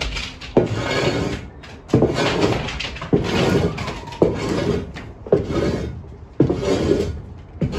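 Snow shovel scraped across wooden deck boards in repeated strokes, about one a second. Each stroke starts with a knock as the blade strikes the planks, then a rasping scrape.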